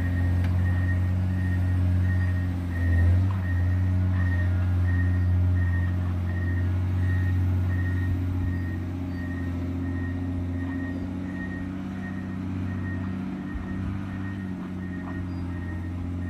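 John Deere 670 GP motor grader's diesel engine running steadily, with its reversing alarm beeping about twice a second, so the grader is backing up.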